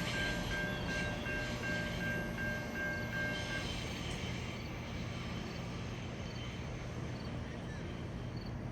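GO Transit commuter train rumbling steadily past a level crossing, slowly fading. The crossing's warning bell dings in a regular rhythm and stops about three and a half seconds in.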